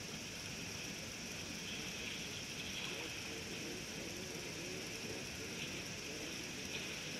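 Steady outdoor waterhole ambience: a constant high hiss with faint wavering sounds in the middle and a few small ticks.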